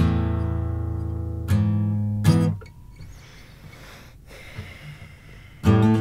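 1968 Gibson Hummingbird acoustic guitar: a chord strummed and left to ring, a second strum about a second and a half in, then the strings are damped suddenly. After a pause of about three seconds, strumming starts again near the end.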